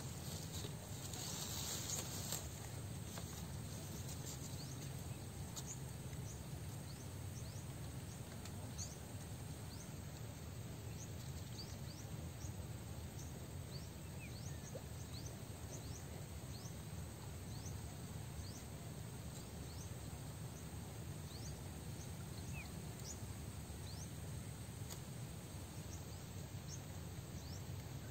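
Quiet outdoor pond-side ambience: a steady low rumble under an even hiss, with scattered faint, short high chirps. A brief rustle comes in the first two seconds.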